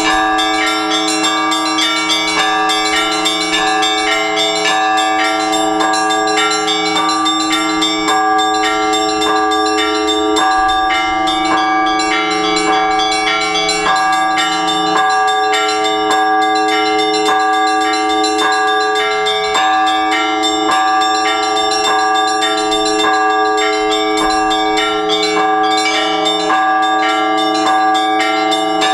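Russian Orthodox church bells ringing a continuous peal. Several bells of different pitches are struck in a quick, even run, and each strike rings on under the next.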